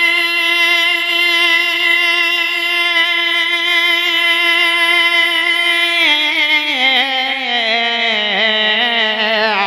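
A man singing a naat into a microphone, holding one long, steady note for about six seconds. He then breaks into wavering ornaments that slide down in pitch.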